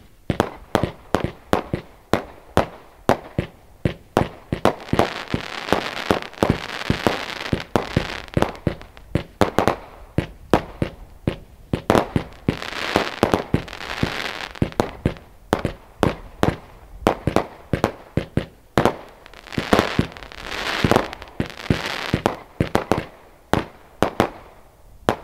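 Beast of Burden compound fireworks cake firing a rapid volley of shots, about three a second, with several stretches of dense hiss and crackle between them.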